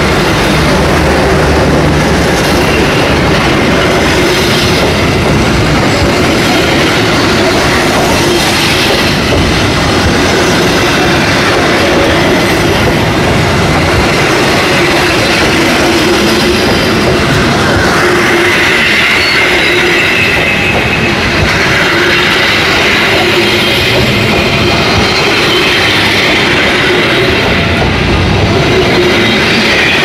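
Passenger coaches of the Taksaka train rolling past at close range while being shunted: a steady rumble with wheels clattering over the rail joints. A high wheel squeal joins in a little past halfway through.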